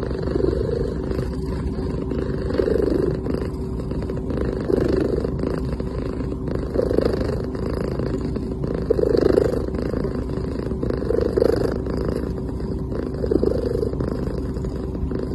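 Sleeping cat purring steadily, swelling rhythmically about every two seconds with each breath.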